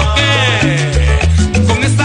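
Salsa song played loud over a dance sound system, with a strong pulsing bass line and a falling run of notes in the first second.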